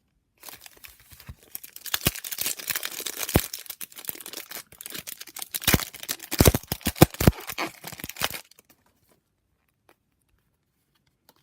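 Plastic wrapper of a basketball trading-card pack being torn open and crinkled by hand, with several sharp rips; it stops about eight and a half seconds in.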